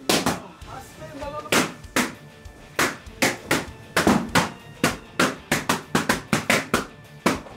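Latex balloons bursting one after another, some twenty sharp pops in irregular quick succession, as they are squeezed and punched by hand.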